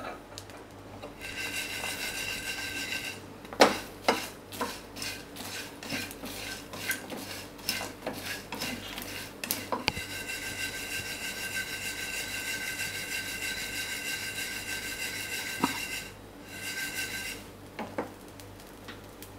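Whole dry spices being dry-roasted in a steel pan and shaken and tossed: a steady scraping rasp, with a run of sharp metal knocks and clinks between about 3 and 10 seconds in.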